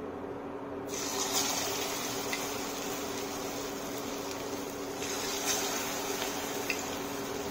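Corn tikkis sizzling as they are slipped into hot oil in a kadhai; the sizzle starts about a second in.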